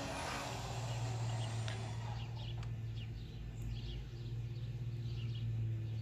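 Overhead garage door opener running, a steady low hum as the door travels up, with birds chirping faintly now and then.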